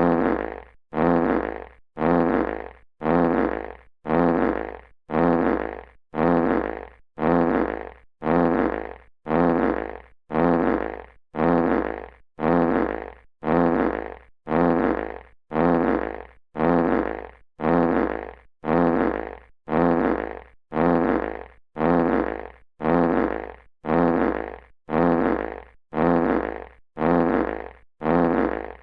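A classic fart sound effect played on a loop: the same short fart repeated a little under once a second, each one starting loud and fading out before the next.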